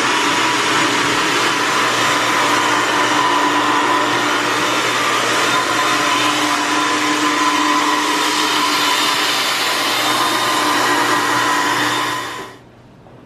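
Countertop blender running on its milkshake setting, blending milk and chocolate syrup into a milkshake: a loud, steady motor whine that cuts off suddenly near the end.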